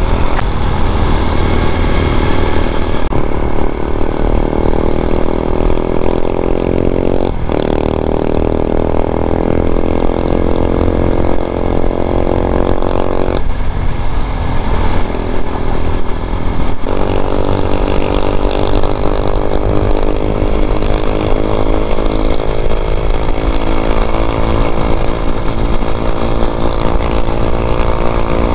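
Vitacci Bashan BSR Raven 250 motorcycle engine running under way, its pitch climbing slowly through each gear and broken by gear changes a few times, with wind rushing on the microphone.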